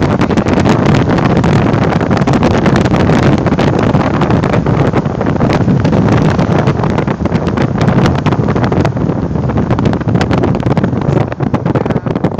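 Strong storm wind buffeting a phone's microphone: a loud, steady, low rumble with constant crackling gusts.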